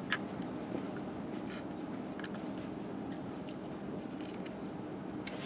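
Faint, scattered clicks and rustles of hands handling wires and small plastic electronic parts on a hexacopter frame, over a steady low room hum.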